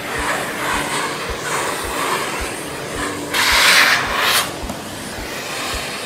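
Miele Blizzard CX1 canister vacuum running as its nozzle is worked over an upholstered chair, a steady suction rush that swells louder for about a second midway. Background music with a steady beat runs underneath.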